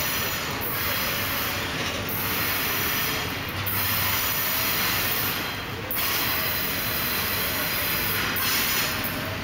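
A CSX double-stack intermodal freight train rolls past close by: a steady, loud noise of steel wheels on rail from the passing well cars, with a faint, wavering wheel squeal.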